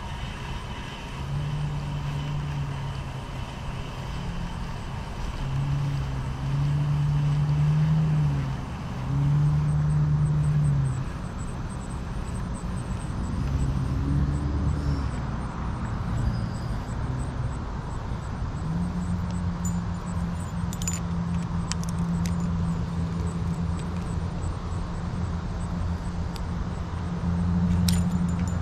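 Low engine hum from motor vehicles, coming and going in several stretches in the first half, then held steady through the second half. A few light clicks near the end.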